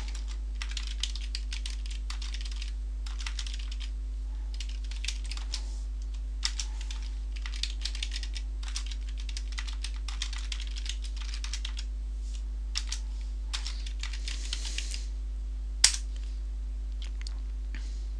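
Computer keyboard typing in bursts of quick keystrokes with short pauses, then one single louder key press near the end, over a steady low electrical hum.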